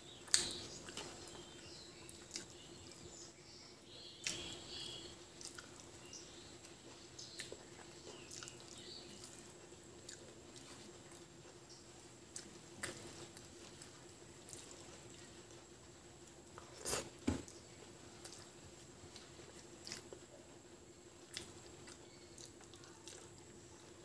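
Quiet eating sounds of a person eating rice and dal by hand: wet chewing and mouth clicks, with the hand squishing and mixing the soft rice on the plate. Sharp clicks come every few seconds, the loudest a close pair about two-thirds of the way through, over a faint steady hum.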